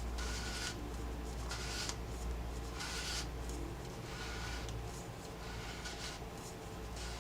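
Wacaco Pipamoka portable coffee maker being pressed down during brewing: short airy hissing rubs, about five of them evenly spaced, each with a faint whistle, as the plunger pushes air and water through the coffee.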